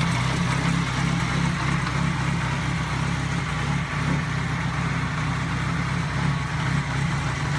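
1982 Kawasaki Z650 SR's air-cooled inline-four engine idling steadily at an even pitch.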